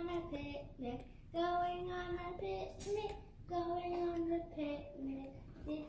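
A high-pitched voice singing a slow melody in long held notes, phrase after phrase with short breaks, with little or no accompaniment.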